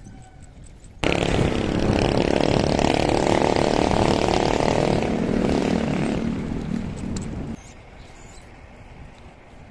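An engine running loudly close by, starting abruptly about a second in, easing off and cutting off sharply near the end.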